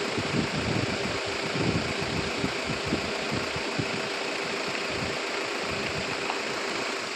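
A vehicle's engine running at low speed as it moves slowly, a steady hum with uneven low rumbling pulses.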